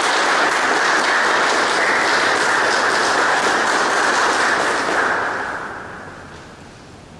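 Audience applauding at the end of a lecture, a steady clapping that dies away about five to six seconds in.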